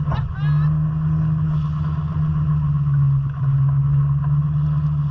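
Small boat's outboard motor running steadily, its pitch dropping slightly about three seconds in.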